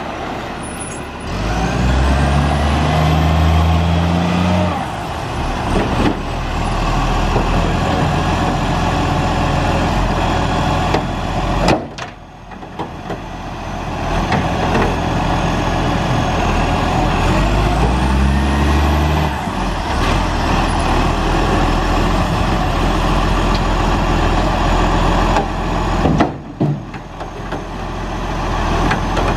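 Iveco Acco side-loader garbage truck's diesel engine revving up twice for a few seconds, with steady running in between and a thin high whine rising and falling over each rev.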